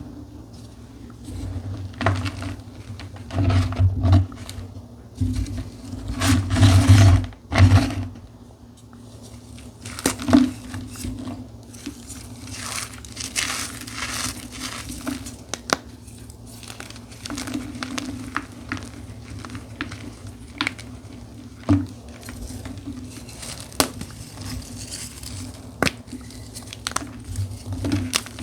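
Blocks of dyed gym chalk with a charcoal crust being crushed by hand, crunching and crumbling. The crushing comes in heavy clusters in the first several seconds, then gives way to lighter, scattered crackles.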